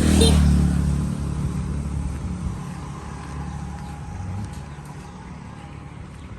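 A motor vehicle engine revs up loudly right at the start, then keeps running and slowly fades.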